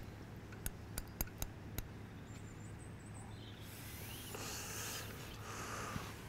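Faint fishing reel and tackle handling: a handful of small irregular clicks in the first two seconds, then a soft scratchy rustle from about halfway through.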